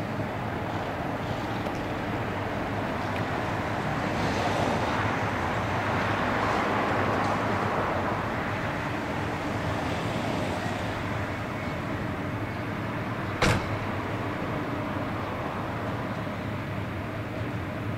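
Electric locomotive standing at a platform, its on-board equipment running with a steady whirr and low hum that swells a little in the first half. A single sharp knock about thirteen seconds in is the loudest sound.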